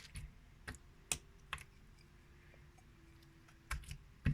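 Jiggly jelly slime being squeezed and worked by hand, giving sharp wet clicks and pops, about six of them with a pause in the middle.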